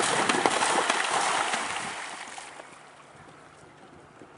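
A horse cantering through shallow water, its hooves splashing loudly with rapid strikes; the splashing dies away about two and a half seconds in as the horse leaves the water.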